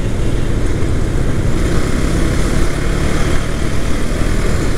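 KTM 250 Duke's single-cylinder engine running steadily as the motorcycle cruises, mixed with wind rushing over the on-board microphone.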